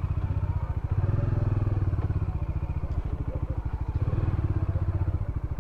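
Bajaj Dominar 400's single-cylinder engine idling just after starting, with an even, fast low beat that swells slightly twice.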